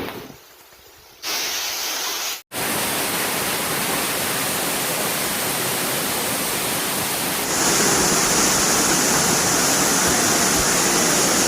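Waterfall rushing: a steady, dense roar of falling water that starts about a second in, drops out for an instant, and grows louder and hissier about two-thirds of the way through.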